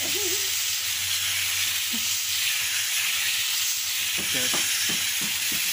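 Steady hiss of a pressure washer's water jet spraying, over a constant low hum.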